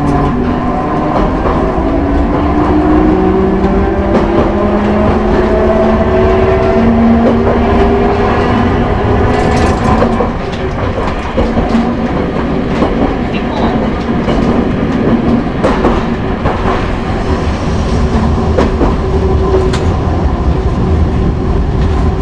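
Hankai Tramway Mo 161's nose-suspended traction motors whining and rising in pitch as the 1928-built tram accelerates. About ten seconds in, the whine fades and the car runs on with wheels clicking over rail joints.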